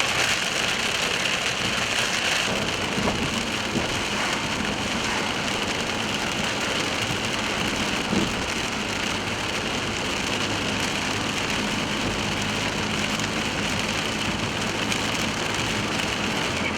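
Heavy rain falling steadily on a car as it drives, with the vehicle's engine and road noise running underneath.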